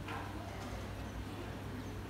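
Quiet cafeteria ambience: a steady low hum with faint distant voices and a brief click right at the start.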